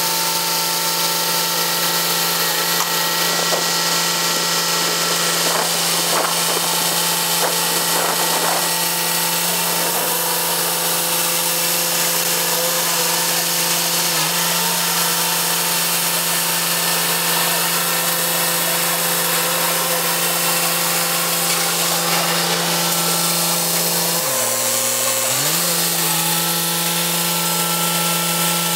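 Truck-mounted hydraulic loader crane running as it hoists a load: a steady mechanical hum and whine from its engine-driven hydraulics. Its pitch sags briefly a few seconds before the end, then recovers.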